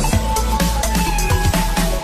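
Electronic dance music with a steady beat: a driving kick drum and a sustained synth melody.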